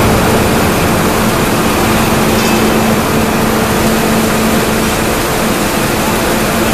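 An 18-ton hydraulic die forging hammer idling between blows: its hydraulic system gives a steady hum with a low tone, over loud, even workshop noise.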